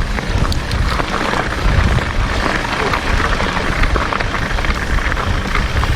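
Wind buffeting an action-camera microphone and the rumble of a mountain bike rolling over trail, with scattered small clicks and rattles.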